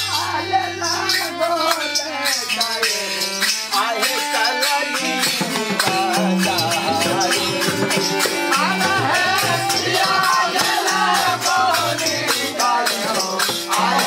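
Tharu folk song played live: a harmonium sustaining chords under a fast, steady rattling percussion beat and hand-drum strokes, with singing voices over it.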